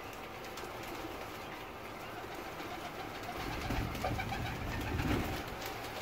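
Flock of domestic pigeons at a feeding tray, cooing, with wing flaps and scuffling that grow louder in the second half.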